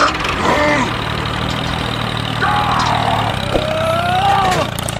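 A tractor engine running steadily, with a few rising and falling cries over it about half a second in and again from about two and a half seconds in.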